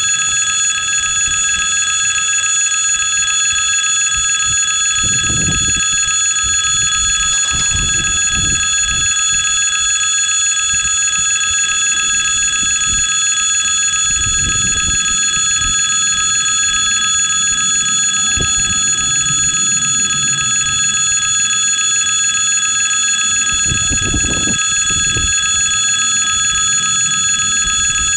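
Railway level crossing warning bell ringing continuously as its red lights flash for an approaching train, a steady bright ring that starts abruptly and holds unchanged. A few brief low rumbles sound underneath.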